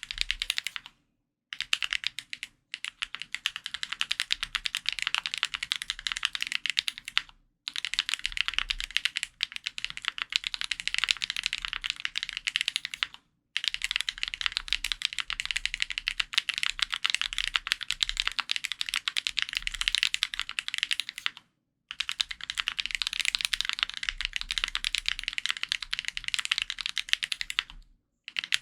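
Custom F1-8X mechanical keyboard with lubed Kailh Box Blueberry Cream Pro linear switches, an aluminium plate and GMK keycaps, typed on quickly in long continuous runs of keystrokes, with brief pauses about every six to eight seconds.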